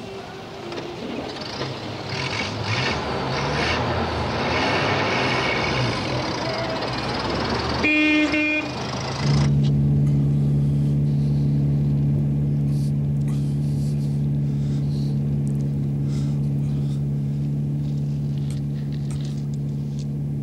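Vintage car being driven: engine and road noise building up, a short horn toot about eight seconds in, then a steady low engine hum.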